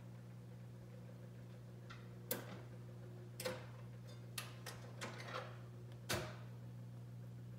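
1953 Seeburg 100-selection Model G jukebox humming steadily while its record-changer mechanism gives a string of short, irregular mechanical clicks, the loudest near the end.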